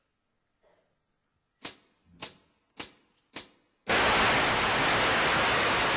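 Four sharp clicks about half a second apart, then a loud burst of static-like hiss that holds for nearly three seconds and cuts off suddenly: sound effects opening a dance act's backing track.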